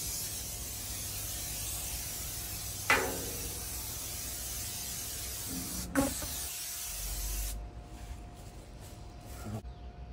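Aerosol can of Pam canola cooking spray hissing steadily as it coats the inside of an offset smoker for seasoning, with two sharp knocks along the way; the spray stops about seven and a half seconds in.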